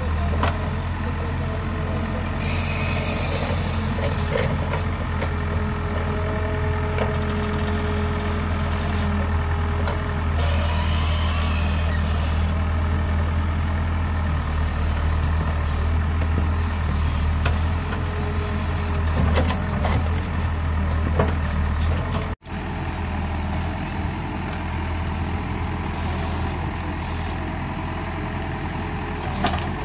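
Heavy diesel engine machinery running steadily with a deep, continuous drone. The sound cuts out for an instant about two-thirds of the way through.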